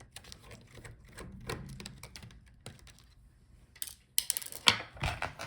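Light scattered clicks and taps of a screwdriver working the last screws and of the laptop's plastic and metal parts being handled, with a louder cluster of knocks about four to five seconds in.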